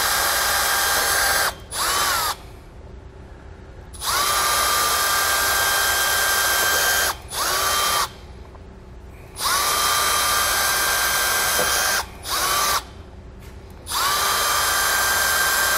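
Cordless drill boring holes through an RV baggage compartment door: the motor whines in about four runs of two to three seconds, each spinning up quickly at the start, with a short blip of the trigger and a brief pause between runs.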